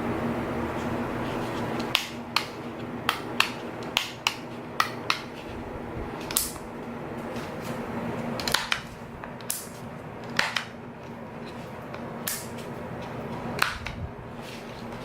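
A low steady motor hum, which fades about two seconds in, then a dozen or so sharp irregular clicks and clacks, as of metal fittings on the UDT UW800-12 mini electric winch being handled.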